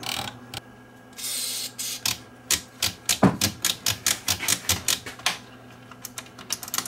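A short hiss of aerosol contact-cleaner spray, then a fast run of sharp clicks, about four or five a second, as the receiver's switches and detented controls are worked back and forth to spread the cleaner. Fainter clicks follow near the end.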